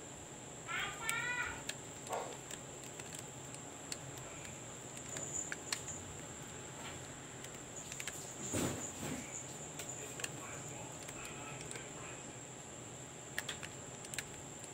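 Faint clicks and taps of hands handling a clear plastic action-camera housing, over a steady thin high whine. About a second in, a quick run of high chirping calls from an animal, and a duller thump a little past the middle.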